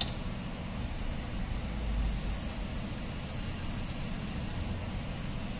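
Steady low rumble and hiss of background noise, with the low rumble swelling briefly about two seconds in.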